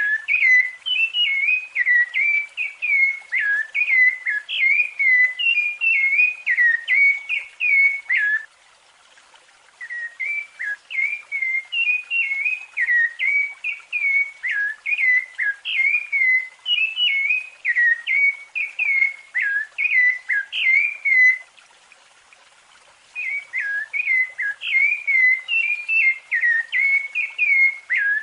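Rufous-bellied thrush (sabiá-laranjeira) singing its fluted song: long runs of quick, clear whistled notes that slur up and down, broken twice by pauses of a second or two, about nine seconds in and again about twenty-one seconds in.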